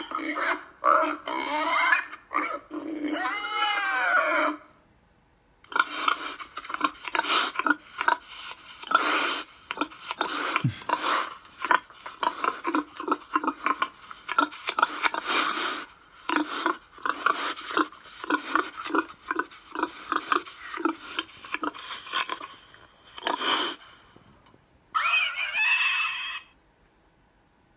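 A vocal sound effect: a long run of quick, choppy, high-pitched squeals, then one wavering squeal near the end.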